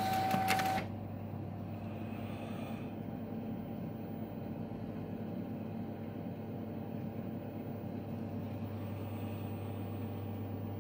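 IBM 5218 daisy wheel printer finishing a job: a short whir of its mechanism with a few clicks that cuts off suddenly within the first second, then the printer standing idle with a steady low hum.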